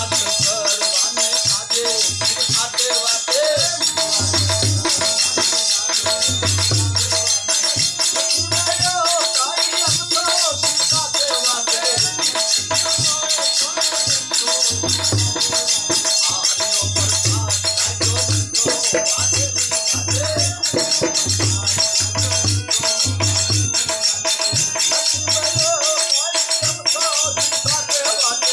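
Gujarati devotional bhajan music: a fast, steady rhythm of jingling hand percussion over repeated low drum beats, with a melodic line wavering above.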